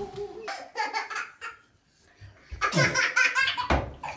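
Children laughing in two bouts, with a brief lull about two seconds in.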